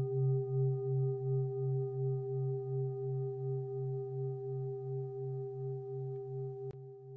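A singing bowl ringing on: a low hum that pulses about three times a second, with a few steady higher overtones above it, slowly fading.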